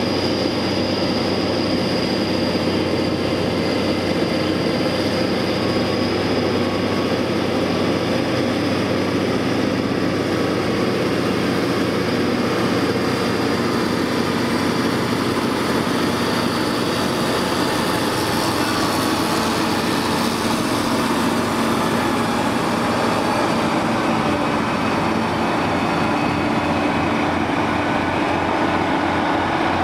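Caterpillar 637 twin-engine scrapers' diesel engines running steadily while working, with a high thin whine held over the engine sound.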